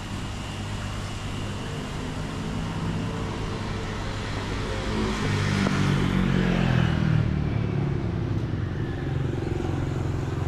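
Street traffic with engines running throughout. One motor vehicle grows louder and passes close by about six to seven seconds in.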